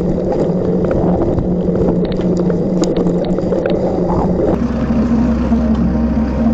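Rumble and rattle on a bike-mounted camera riding a gravel trail, with scattered clicks and knocks. About four and a half seconds in it changes to a steadier low hum of road traffic.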